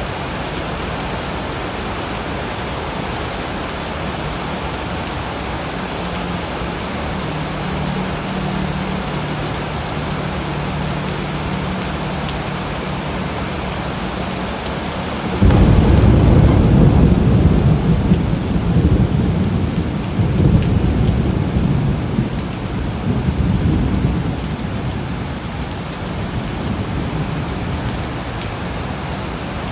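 Steady rain falling, with a sudden loud crack of thunder about halfway through that rolls and rumbles for about ten seconds before fading back under the rain.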